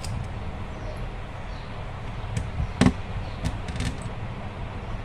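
A few light clicks and taps of a screwdriver and small parts being handled on an opened Lenovo IdeaPad 330 laptop, with one louder knock near the middle, over a steady low hum.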